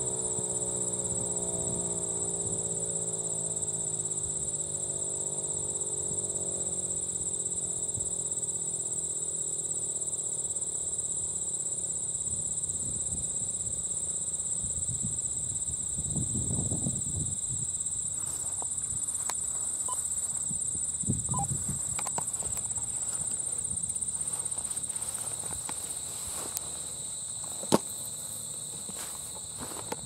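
Federal Signal 508 mechanical siren winding down, its chord of tones sliding steadily lower and fading out over the first ten seconds or so. Insects trill steadily and high throughout, with a few dull thumps in the second half.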